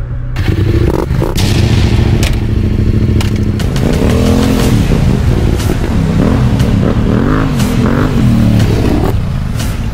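Yamaha Ténéré 700 parallel-twin motorcycle engine running and being revved, its pitch rising and falling several times in the middle, with a few sharp clicks and knocks.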